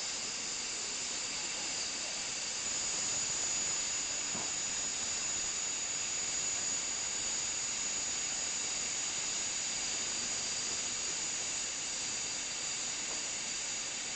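Standing LMS Fowler 4F 0-6-0 steam locomotive No. 44422 hissing steam steadily, with a thin high steady tone over the hiss that grows stronger about three seconds in.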